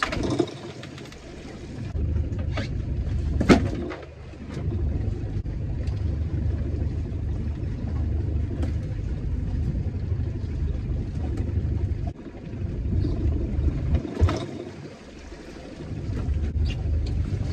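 A small fishing boat's engine running under way, its level easing off and picking up again a few times, with several sharp knocks.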